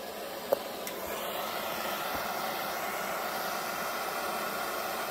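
Handheld gas torch on a disposable fuel cylinder burning with a steady hiss. One sharp click about half a second in.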